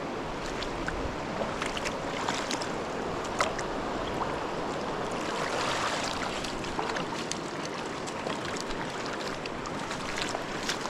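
River water rushing and splashing steadily, with many small sharp splashes and ticks scattered through it.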